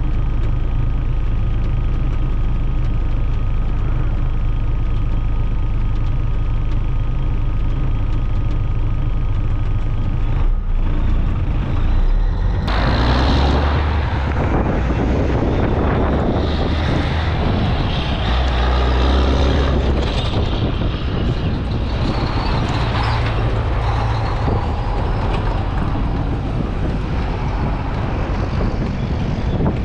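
Semi truck's diesel engine droning steadily, heard inside the cab. About a third of the way in, the sound switches to the truck heard from outside on its trailer: the engine pulls hard from a stop under load, with exhaust noise and rushing air, its pitch shifting up and down through the gears.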